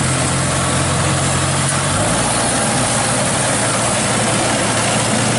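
Diesel engine of heavy rice-harvest machinery running steadily, its low note shifting to a different pitch about two seconds in.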